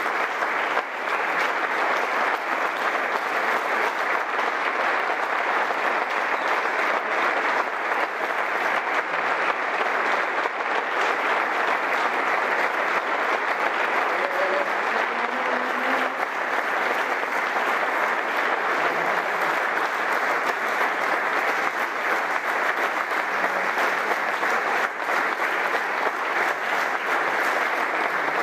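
A roomful of people giving a standing ovation: many hands clapping in a dense, unbroken applause that keeps an even level.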